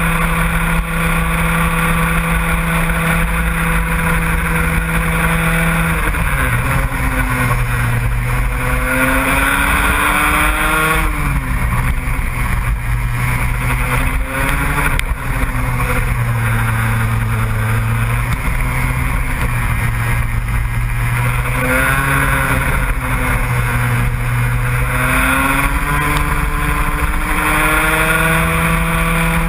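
A racing engine running hard throughout. Its pitch holds steady for about the first six seconds, then falls and rises again several times as the revs drop and build.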